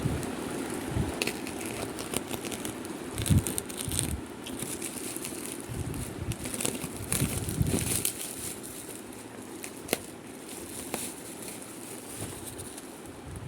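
Packaging being handled and crinkled, with scattered crackles, clicks and a few dull bumps.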